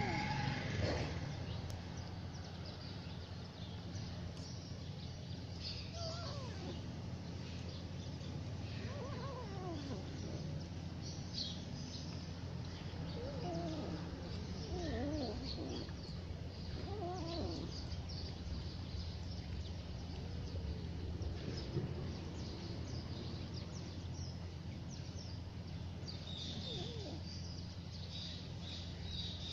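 Short wavering animal calls every few seconds over a steady low outdoor background rumble.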